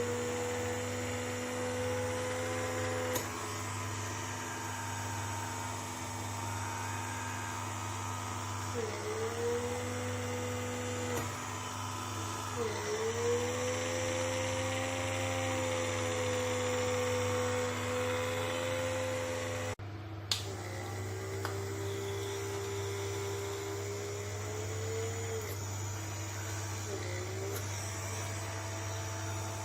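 Small electric motor of a handheld pore vacuum whining steadily. Its pitch dips briefly and recovers several times, and it runs at a slightly lower pitch after a sudden break near 20 s.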